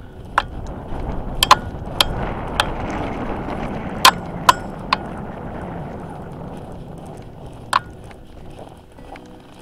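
Footsteps crunching over packed snow in microspikes, with sharp irregular clicks of trekking pole tips striking the snow and ice. The crunching swells from about a second in and fades after about six seconds, and most of the clicks come in its first half.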